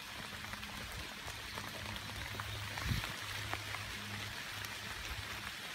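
Steady rain falling on the trees and undergrowth, an even hiss throughout, with a faint low hum underneath and one soft knock about three seconds in.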